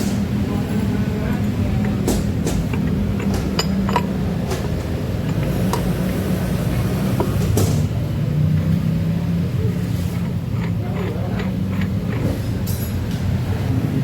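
A steady low mechanical hum, like a machine running, with scattered light metallic clicks and taps of parts and tools being handled.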